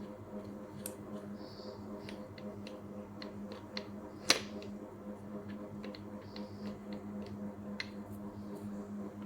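Scattered light clicks and taps from objects being handled, with one sharp click about four seconds in, over a steady low electrical hum.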